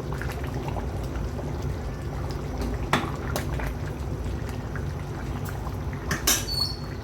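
Pot of egusi soup bubbling and simmering, over a steady low rumble, with a sharp click about three seconds in and a few more clicks near the end.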